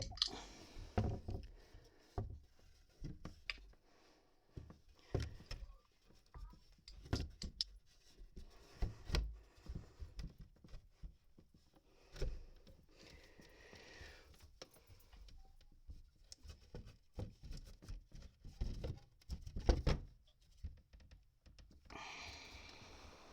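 Irregular knocks and thuds with rustling and handling noise, spaced unevenly.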